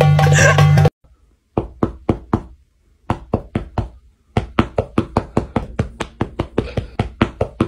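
Music that cuts off about a second in, followed by a hand tapping on a bed: a run of four sharp knocks, four more, then a quicker steady run of knocks.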